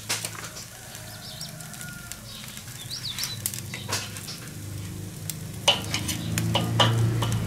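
Meat sizzling on the grate of a charcoal kettle grill, with sharp clicks of metal tongs on the grate as the steaks and pork belly slices are moved. A low engine drone from passing mopeds grows louder near the end.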